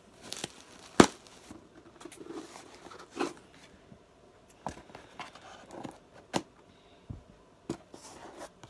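Cardboard shipping box being opened by hand: packing tape torn and cardboard flaps pulled apart, with scattered sharp clicks and rustles, the loudest about a second in.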